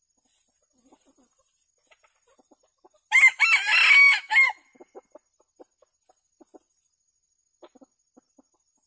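Junglefowl rooster crowing once, about three seconds in: a short crow of about a second and a half that breaks off sharply. Scattered soft, low clucks follow.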